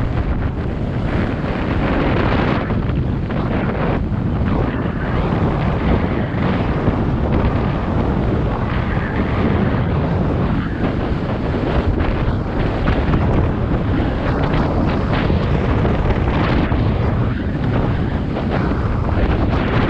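Wind buffeting the microphone of a moving GoPro Hero 7 Black action camera: a loud, steady, rough rumble with no break.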